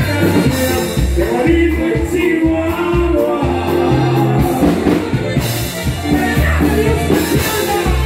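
Live norteño band music with singing: a bass line stepping from note to note under a held melody line and a singer's voice.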